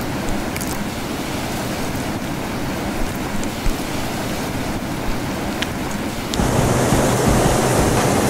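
Steady wind and ocean surf noise, with wind buffeting the microphone. It grows louder about six seconds in.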